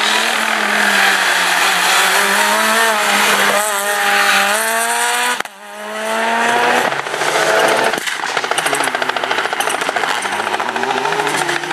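Rally car engines at full throttle, revving up and climbing through the gears with a quick drop in pitch at each shift. The sound cuts abruptly to another car twice, and the last part is a fast, rough rattling engine note.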